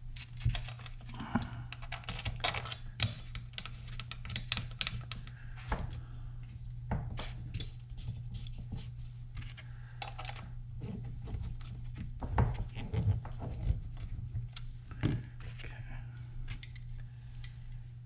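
Irregular metal clinks, taps and small scrapes of hand tools and bolts being fitted to a chainsaw's cylinder and engine parts, with a steady low hum underneath.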